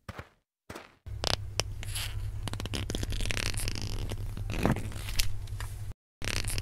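Scraping and clicking as a hand handles a small homemade toy tractor and its pump box on sand. After a couple of short bits of handling noise, the scraping and clicking run on continuously from about a second in over a steady low hum, with a brief break near the end.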